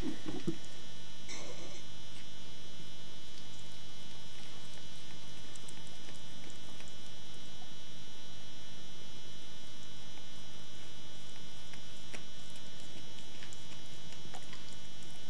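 Steady electrical hum, with a band of thin high steady tones above it.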